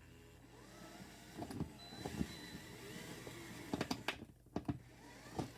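Cordless screw gun whirring, its pitch wavering, as it drives a stubborn screw that won't go in, with a few sharp clicks and knocks near the end.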